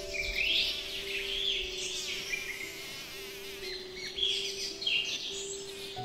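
Birds chirping in quick rising and falling notes, over soft background music with long held notes.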